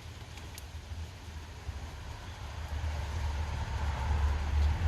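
Strong wind gusting across the microphone: a low buffeting rumble with a rushing hiss that builds to its loudest gust near the end.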